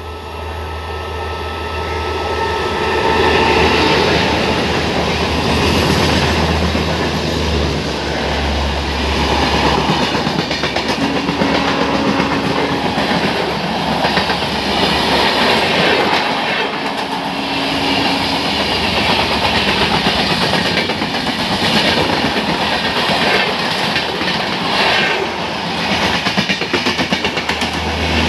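Express train of LHB coaches, hauled by an electric locomotive, passing at high speed. It grows louder over the first few seconds as the locomotive approaches, then holds as a loud, steady noise of wheels on rails while the coaches go by.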